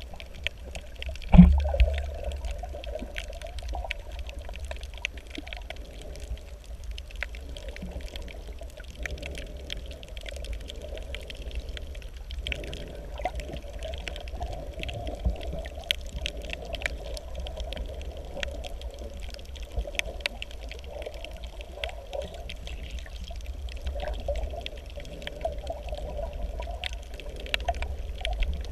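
Underwater ambience picked up by a submerged camera: a steady low rumble and wash of moving water with scattered faint clicks and crackles, and one sharp thump about a second and a half in.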